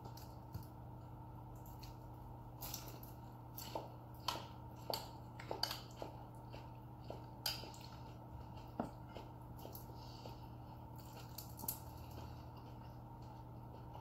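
Metal spoons and forks clinking and scraping lightly on ceramic plates and bowls, a scattered run of small clicks every second or so, with some chewing, over a steady low hum.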